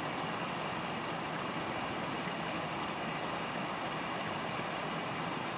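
Small mountain stream running over rocks: a steady, even rush of water.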